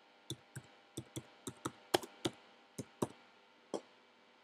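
Typing on a computer keyboard: about a dozen key clicks at an uneven pace, stopping shortly before the end.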